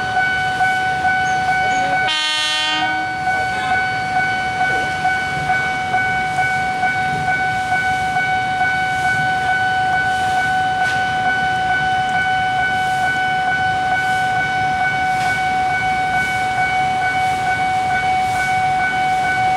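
Railway level-crossing warning bell ringing continuously with a steady pulsing beat, and a train horn sounding one blast about two seconds in.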